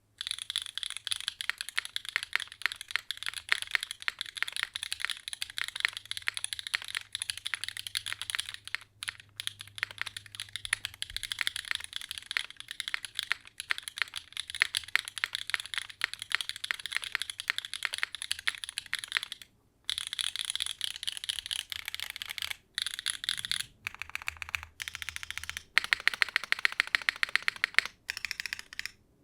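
Continuous fast typing on a mechanical keyboard with SWK Dragon Ghost pre-lubed linear switches and GMK keycaps, in a gasket-mount SingaKBD Kohaku with a carbon fiber build and no foams: a loud, clacky stream of keystrokes with a few brief pauses. A run of louder, more separate strokes comes near the end.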